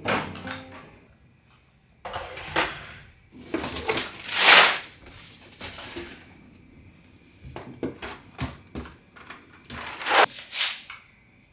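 Refrigerator being cleaned out by hand: containers and fridge drawers sliding, clunking and being set down, in an irregular run of knocks and swishes.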